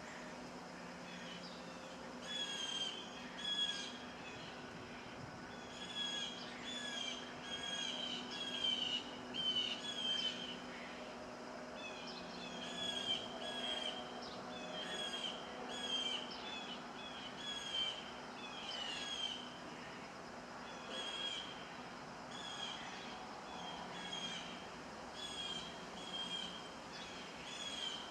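Small birds chirping, short repeated calls coming in runs of several seconds, over a steady background of wind.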